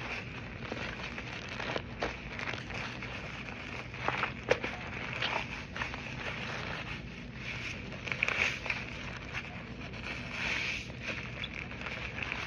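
Foamy cotton soap slime being squeezed and worked by hand, giving a run of irregular small clicks and crackles, the loudest about four and a half seconds in and again around eight seconds in.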